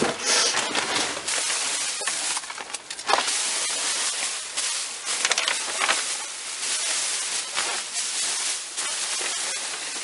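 Plastic packaging and trash rustling and crinkling as someone rummages through discarded store goods, with a few louder crackles.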